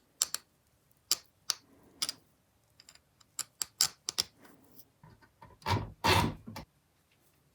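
Irregular sharp clicks and taps of small metal parts being handled: a hex bit and the Leatherman Wave+ bit holder with its spring latch. About five and a half seconds in come two louder, longer rubbing knocks.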